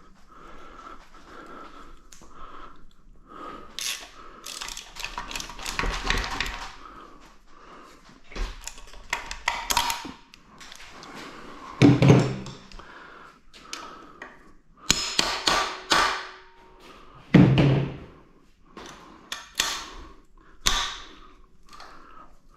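Irregular metal knocks, taps and clatter of hand tools and parts during the teardown of a GM 2.4 EcoTec engine, with two heavy thunks in the second half.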